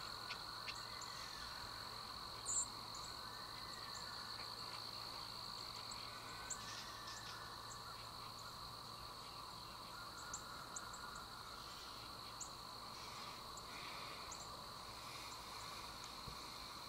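Evening insect chorus: a steady, high-pitched trilling of crickets or similar night insects, with scattered short, high chirps, one louder about two and a half seconds in.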